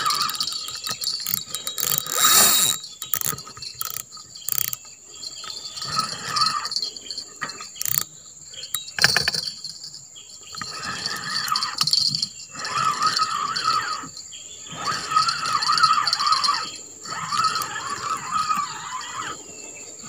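Spinning reel being cranked to wind in line, over a steady high buzz of insects.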